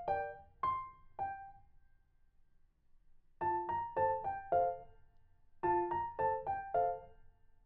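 Background music: a piano-like keyboard playing short, bright phrases of struck notes, with a pause of about two seconds after the first phrase before the notes resume.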